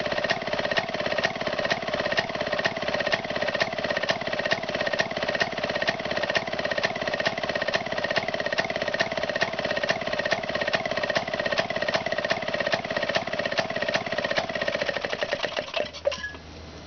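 Maytag Model 92 single-cylinder two-stroke engine running steadily, a regular rhythm of sharp firing pops. Near the end it is shut off: the firing stops.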